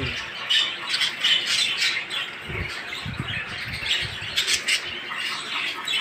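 A flock of budgerigars chattering and squawking, a constant overlapping chorus of short high calls, with a few low bumps around the middle.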